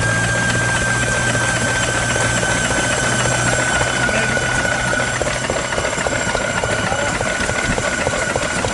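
Yanmar K6 single-cylinder hopper-cooled diesel stationary engine running with a rapid, even knock of firing strokes. A steady high whine sounds over it, sinking slightly in pitch, while a low hum fades out in the first few seconds.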